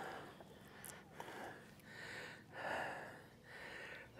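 A man breathing close to the microphone, about five soft, noisy breaths in and out.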